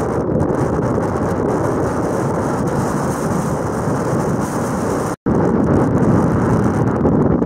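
Storm wind blowing hard against a tent, a loud, steady rushing noise. It drops out completely for an instant about five seconds in, then resumes.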